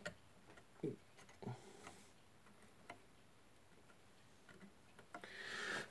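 Near silence broken by a few faint, scattered clicks and taps from small computer hardware being handled, with a soft rustle building near the end.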